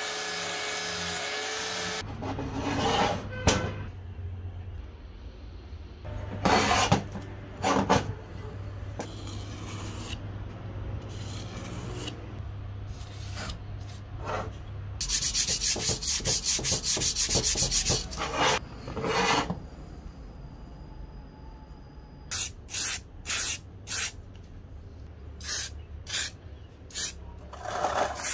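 Hand rubbing and sanding in a workshop, over a steady low motor hum. A rapid pulsing stretch of about three seconds comes in the middle, and a string of short separate bursts near the end.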